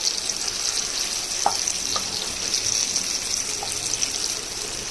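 Potato pieces frying in hot mustard oil, a steady sizzle, with a couple of brief light clinks about one and a half and two seconds in.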